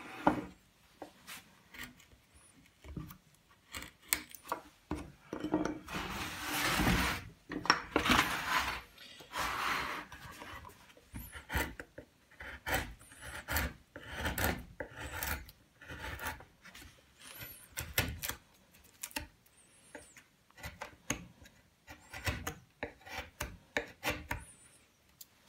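Small carving chisel scraping and paring the background of a wooden relief panel by hand, in many short, uneven strokes with a few longer scrapes.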